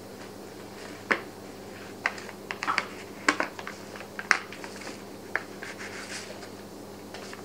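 Wheat flour poured from its packet into a plastic mixing bowl, with a run of sharp irregular crinkles and taps from the packet handling, loudest in the first few seconds and fading to faint crackling. A faint steady hum sits underneath.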